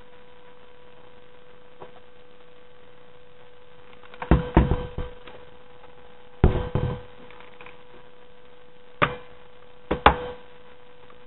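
Steady electrical hum, with several short clusters of knocks and clunks from hands handling a laptop. The two loudest come about four and six and a half seconds in, and two single knocks follow near the end.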